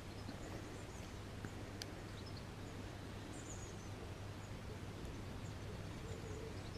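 Faint outdoor background with a steady low hum and a few short, high bird chirps; a single light click about two seconds in.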